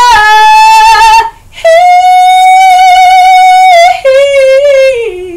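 A woman singing gospel unaccompanied, loud and without words. She holds two long high notes, then steps down in a falling run with vibrato to close the phrase.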